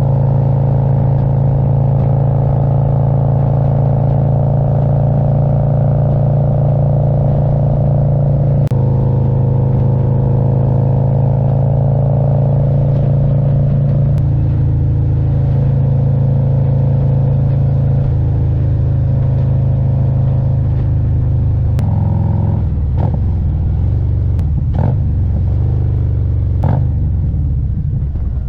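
Harley-Davidson Road Glide's Milwaukee-Eight 117 V-twin running while riding, a steady low rumble whose pitch drops in steps several times. A few short clicks near the end.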